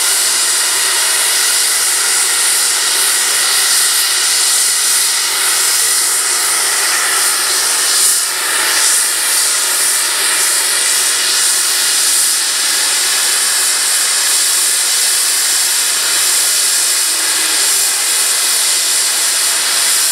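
The safety valves of Flying Scotsman, an LNER A3 Pacific steam locomotive, blowing off while it stands: a loud, steady hiss of escaping steam. This is the sign that the boiler is at full working pressure.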